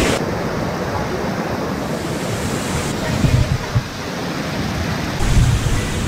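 Shallow mountain stream rushing over rocks and stepping stones, a steady wash of water noise, with wind buffeting the microphone in gusts about three and five seconds in.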